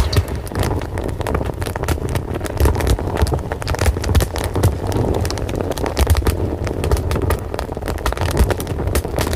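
Fire crackling, with frequent sharp pops over a steady low rumble of burning.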